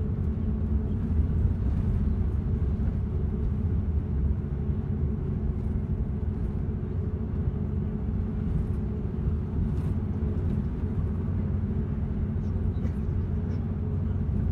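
Steady low drone of engine and road noise inside a moving road vehicle.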